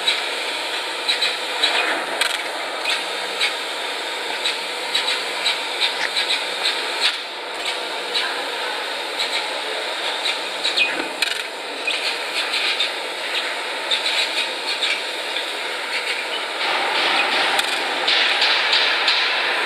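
Fiber laser cutter cutting 4.5 mm carbon steel plate: a steady hiss of the cutting gas jet through the kerf with a dense crackle of sparks and spatter, growing louder for a few seconds near the end.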